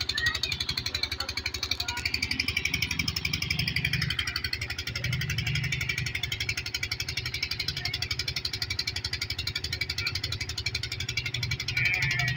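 Engine of a trailer-mounted irrigation water pump running steadily with a fast, even beat, over the rush of water splashing from its outlet pipe into a concrete tank.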